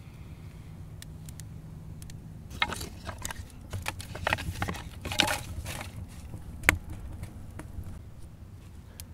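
A handful of thin dry sticks clattering and scraping together as they are fed into a rocket stove's firebox. The handling comes in a run of quick clicks and rustles, with one sharp knock about two-thirds of the way through.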